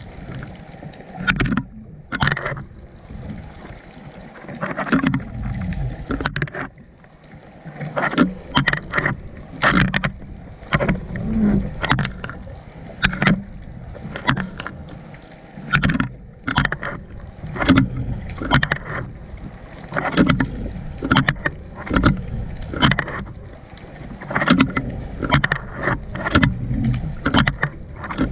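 Muffled water sloshing and rumbling against a GoPro in its waterproof housing, with irregular knocks every second or so.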